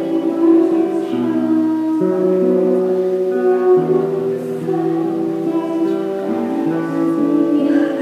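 A woman singing into a microphone, accompanied by a strummed acoustic guitar, its chords changing every second or two.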